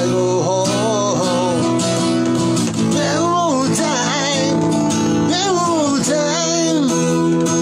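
Capoed steel-string acoustic guitar strummed steadily while a man sings a wavering melody over it in several short phrases.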